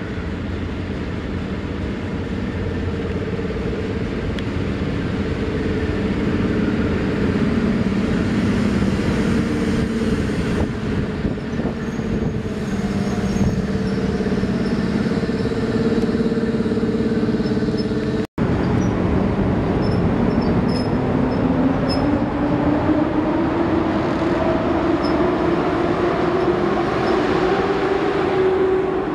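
EP07 electric locomotive and its passenger coaches running into the station with a steady hum over the rumble of the wheels. After a break, the train is moving off past the platform, and a whine rises steadily in pitch as it gathers speed.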